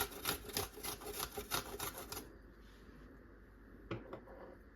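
Garlic cloves being grated by hand: quick rhythmic strokes, about five or six a second, that stop a little over two seconds in, with one more single stroke near the end.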